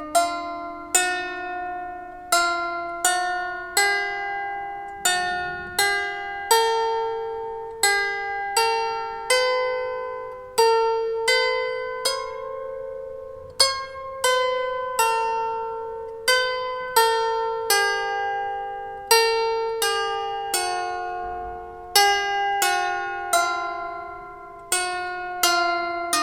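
12-string lyre harp plucked one string at a time, playing a slow, simple melody. Each note rings on and fades as the next is plucked.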